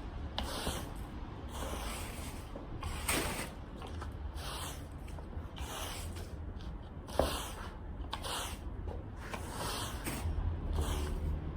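Irregular rubbing strokes, each a short swish, over a steady low hum.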